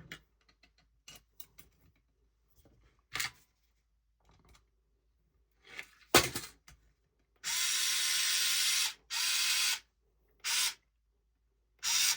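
Small cordless power screwdriver driving a 35 mm screw into an RC snowmobile skid, in short runs: one of about a second and a half, then a shorter one and a brief pulse. Before it, light clicks and taps of small parts being handled, with a sharp knock about six seconds in.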